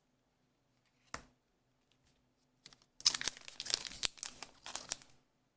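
A trading-card booster pack's foil wrapper being cut open and crinkling: a single sharp click about a second in, then about two seconds of dense crackling and rustling.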